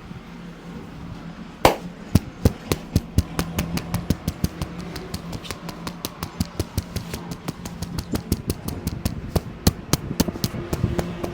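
A barber's hands striking the head in a fast percussive massage: sharp slaps, about four to five a second, starting with a loud one about a second and a half in, over a steady low hum.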